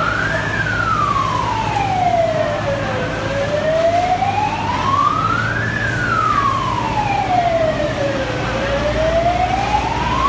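Fire engine siren sounding a slow wail, its pitch climbing and falling in long sweeps of about five seconds each, over a steady low hum.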